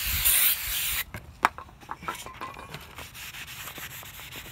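Aerosol brake cleaner hissing from the can for about a second onto a new steel brake rotor, followed by a couple of sharp clicks. Then a cloth rubs and wipes the rotor's face, taking off the factory anti-rust coating.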